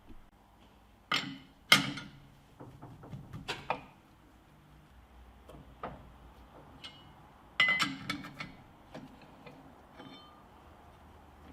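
Scattered metallic clinks and knocks of steel tools and parts being handled at a lathe, coming in small clusters: a pair about a second in, a few more around three and a half seconds, and a busier run near eight seconds.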